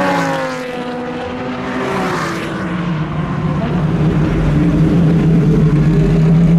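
Pagani Zonda Revolucion's 12-cylinder AMG Mercedes engine, its revs falling as the car slows, then running at a steady low note as it rolls past close by and pulls up, getting louder toward the end.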